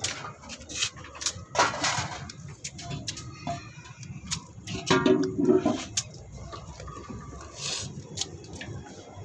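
Thick masala gravy being scooped by hand from a plastic bucket and splashed into a large aluminium cooking pot: wet slops and splashes with scattered clicks. A brief pitched call about five seconds in.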